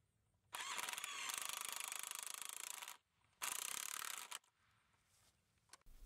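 Cordless drill driving a lag screw through an insulated fence end buckle into a wooden post, in two runs: a long one of about two and a half seconds, then a short burst of about a second.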